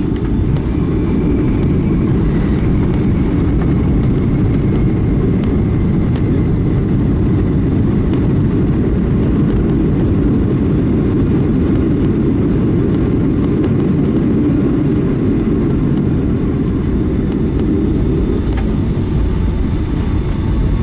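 Steady, loud, low rumble inside a Boeing 757-300's cabin during the landing rollout: engine and airflow noise with the rumble of the wheels on the runway.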